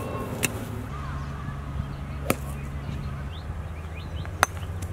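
Golf club striking a ball: sharp clicks about two seconds apart, the loudest about four and a half seconds in, over a steady low hum.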